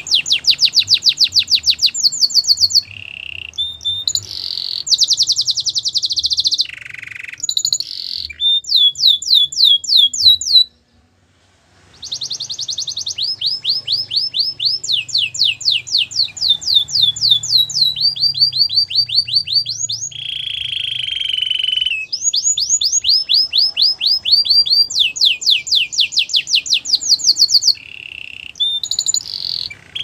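Canary singing: long phrases of fast, rapidly repeated trilled notes, each phrase switching to a new note type. There is a brief pause about eleven seconds in.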